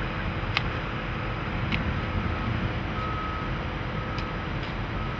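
Hydraulic excavator's diesel engine running steadily, with a reversing alarm beeping about once a second from about two seconds in, and a few sharp clinks.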